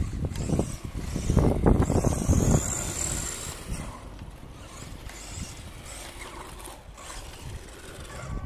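A Subotech BG1518 1/12-scale RC truck driving on asphalt: its electric motor whines and its tyres rumble, louder in the first few seconds with a high whine about two seconds in, then quieter as it moves off. Wind rustles on the microphone throughout.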